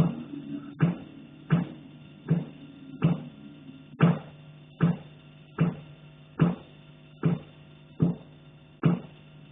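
Repeated knocking in an attic: about a dozen evenly spaced blows, a little under one a second, keeping up without a break.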